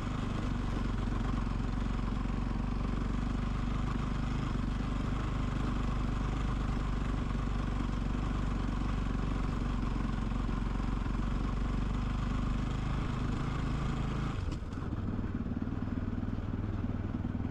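Motorcycle engine running steadily as the bike is ridden along a dirt track; about three-quarters of the way through the engine note drops and changes abruptly.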